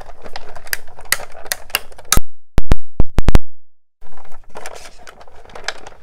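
Big Shot die-cutting machine being hand-cranked: the plate sandwich rolls through the rollers with irregular creaking clicks and crackles as the dies cut the cardstock. About two seconds in, the sound cuts out for nearly two seconds, broken by several loud sharp pops, before the crackling cranking resumes.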